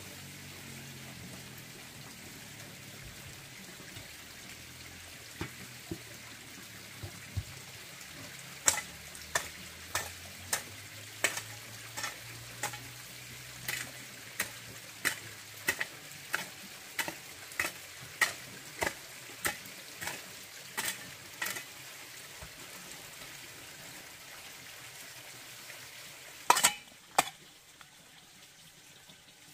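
Food frying in a pan with a steady sizzle. Through the middle, a utensil knocks against the pan in an even rhythm of about three knocks every two seconds, and two louder knocks come near the end.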